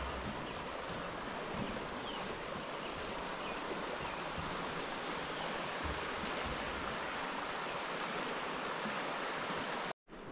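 River water flowing steadily over riffles, an even rushing hiss. The sound cuts out for a moment near the end.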